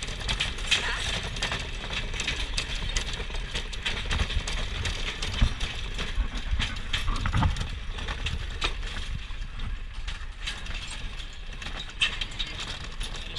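Horse-drawn carriage clattering and rattling as it rolls along, with a steady run of irregular clicks and knocks over a low rumble.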